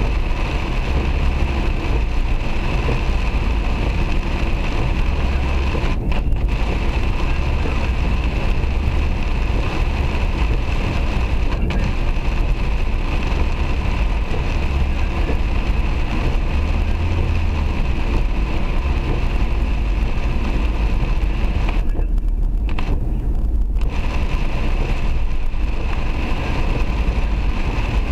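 Steady noise inside a car driving through heavy rain: rain drumming on the roof and windscreen over a low rumble of road and engine. The higher hiss drops out briefly a few times.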